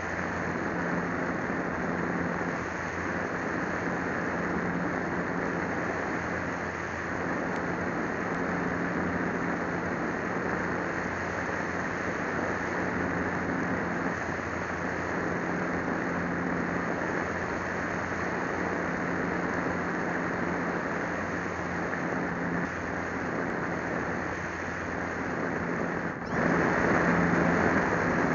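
Steady drone of an RC plane's motor and propeller mixed with wind rush, heard through a small camera riding on the plane in flight; it gets louder about two seconds before the end.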